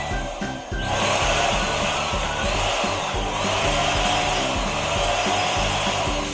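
Electric balloon inflator blowing a steady rush of air into a balloon, with a short break about half a second in. Background music plays underneath.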